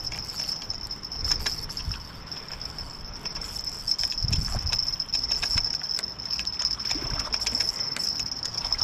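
Light spinning reel being wound in on a hooked tench, with scattered clicks and a few low handling bumps. A steady high-pitched trill runs underneath.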